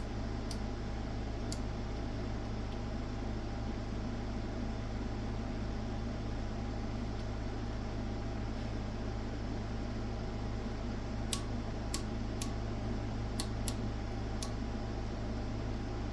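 Steady mains hum and fan noise from a running oscilloscope. A few sharp clicks sound over it: two near the start and a quick cluster of about six later on.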